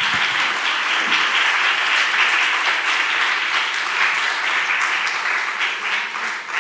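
Audience applauding steadily: many hands clapping together in a large room.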